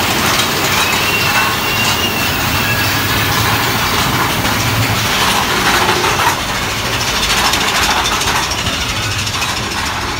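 Big Thunder Mountain Railroad mine-train roller coaster running along its track, a loud, steady rush and rattle of the cars.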